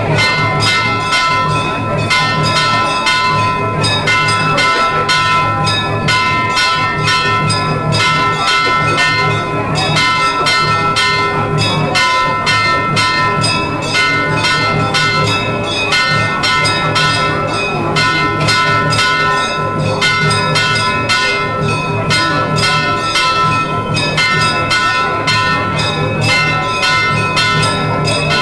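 Temple bells ringing continuously in fast, even strokes during a Shiva abhishekam (ritual bathing of the lingam).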